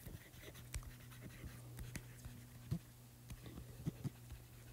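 Faint taps and scrapes of a stylus writing on a tablet's glass screen, a few sharp ticks spread irregularly, over a steady low hum.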